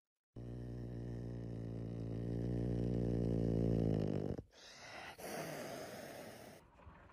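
A long, low, buzzing snore that grows louder for about four seconds and stops abruptly. A caracal then hisses for about a second and a half.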